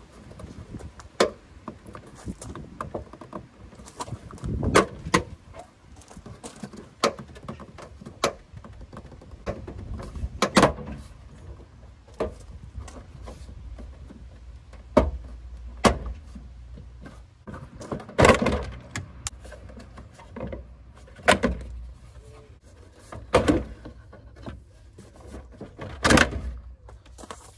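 Plastic tailgate trim panel on a Peugeot 207 station wagon being pulled off by hand, its push-in retaining clips snapping loose with irregular sharp snaps and thunks spread over the whole stretch, the loudest about ten, eighteen and twenty-six seconds in.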